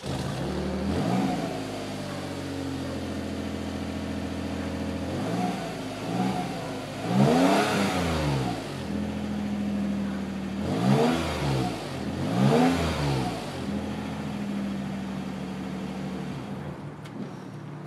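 2010 Toyota RAV4's exhaust, fitted with a stock Silverado truck muffler and stock RAV4 tips: the engine catches at the very start on a cold start, idles steadily, and is revved up and back down about six times, the highest revs about 8 and 13 seconds in.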